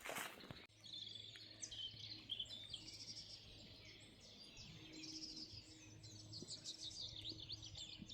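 Faint birdsong in woodland: several small birds chirping and trilling in quick high-pitched phrases. A few footsteps in the first second, then a faint steady low hum underneath.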